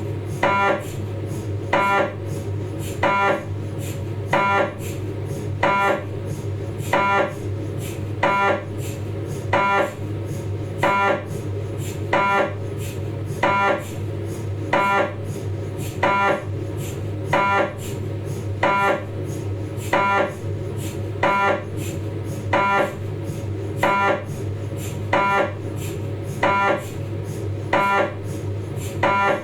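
Philips 1.5 T MRI scanner's gradient coils running a 3D T2-weighted sagittal spine sequence. A short buzzing tone repeats about every second and a quarter over a steady low hum.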